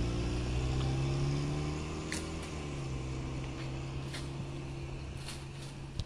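A motor vehicle's engine running at a steady low hum, its pitch dropping slightly about two to three seconds in and its level slowly fading, with a few faint sharp ticks.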